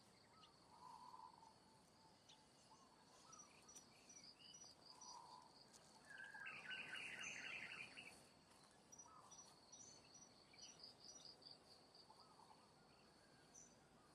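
Faint outdoor ambience of insects: a steady high buzz with repeating high chirps, with scattered short bird-like calls. A louder, rapid chattering call stands out for about a second and a half, a little over six seconds in.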